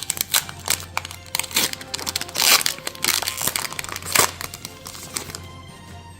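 Foil wrapper of a Pokémon card booster pack crinkling and crackling as it is handled and opened, loudest about two and a half seconds in and dying down near the end. Background music plays throughout.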